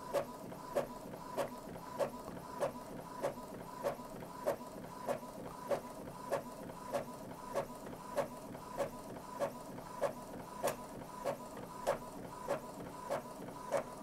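Epson EcoTank ET-2720 inkjet printer printing a full page of solid yellow ink, with high-speed printing off, to flush clogged nozzles. A steady motor whine is punctuated by a regular click about every 0.6 seconds as the print head carriage sweeps back and forth.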